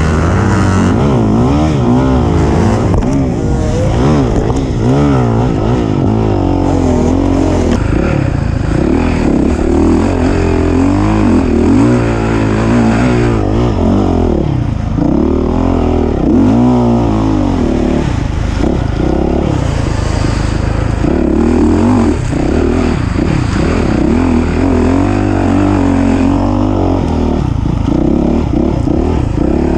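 Off-road racing engine revving up and down continuously under hard throttle changes, its pitch rising and falling every second or two.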